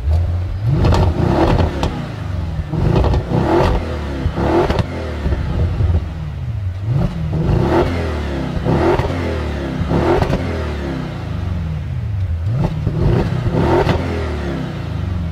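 ABT-tuned 735 hp Audi RS6 Avant's twin-turbo 4.0-litre V8 revved while stationary: about ten short throttle blips, several in quick pairs, each rising and falling back to idle, with sharp pops through the exhaust among the blips.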